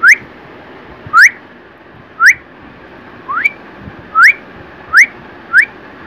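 A person whistling to pet budgerigars: seven short whistles, each gliding upward, about once a second. It is a whistle call for the budgies to learn.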